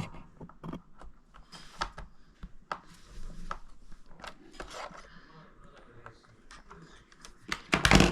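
Plastic building-toy parts being handled: scattered small clicks and knocks, with a louder clatter near the end.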